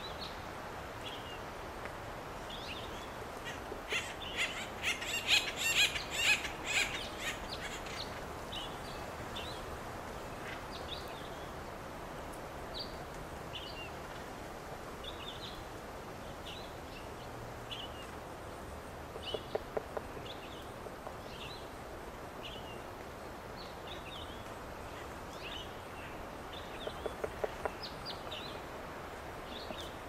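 Acorn woodpeckers: a loud burst of raucous waka-waka calling a few seconds in, with short high chirps scattered throughout. Twice, once midway and once near the end, a woodpecker drums a short rapid roll on the dead snag.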